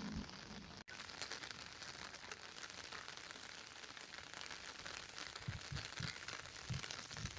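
Heavy monsoon rain falling steadily, a dense patter of drops, with a brief dropout about a second in and a few low thumps near the end.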